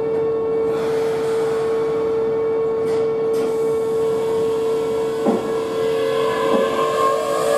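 Keihan 7200-series electric train starting to pull out of the platform: a steady hum, two short knocks, then from about six seconds in a rising electric motor whine as it picks up speed.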